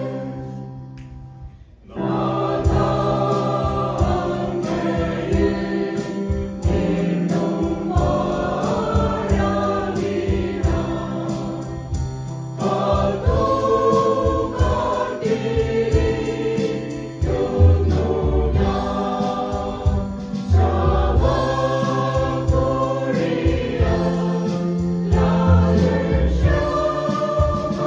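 Mixed church choir singing a hymn together; the sound dips briefly at the start and the full choir comes back in about two seconds in.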